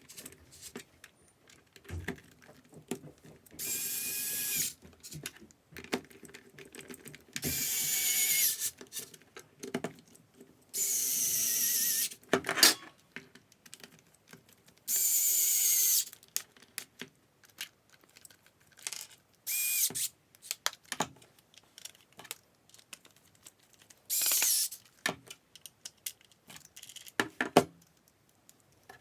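A small cordless power tool motor runs in about six short bursts of a second or so. Each burst has a whine that drops in pitch as the motor winds down. Clicks and handling knocks fill the gaps between bursts.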